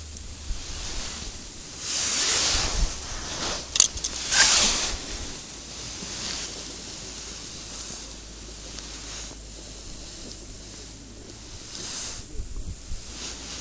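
Gusts of wind rushing on the microphone, swelling loudest about two and four seconds in, with a sharp click near four seconds.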